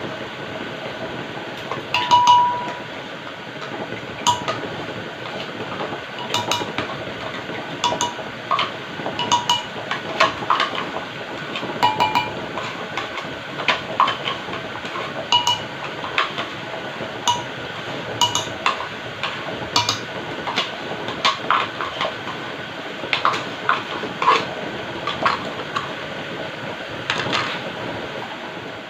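Spoon clinking and scraping against a container many times, light irregular ticks and tings, over a steady background hum.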